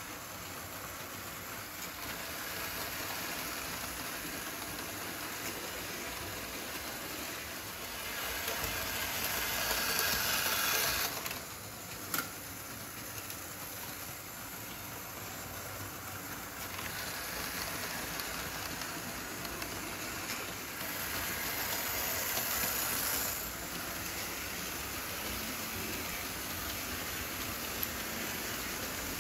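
Märklin HO model trains running on the layout: a steady whirring rattle of small metal wheels on the track and the locomotives' electric motors, swelling twice as a train passes close by. A single sharp click about twelve seconds in.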